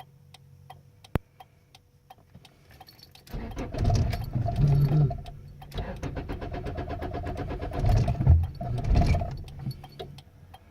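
GSR Civic's engine being cranked on the starter for about seven seconds, surging unevenly as it struggles to start: a hard-starting condition. A sharp click comes about a second in, before the cranking begins.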